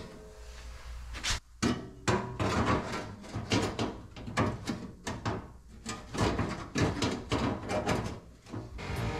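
Irregular clunks, taps and light rattles of a car's sheet-metal body panels as a replacement front nose panel is handled and pushed into place against the body.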